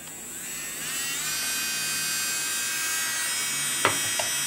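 Delanie electric nail drill (e-file) handpiece switched on and dialled up to 35,000 RPM: its whine rises in pitch over the first second, then runs steady and loud at top speed. Two light clicks come near the end.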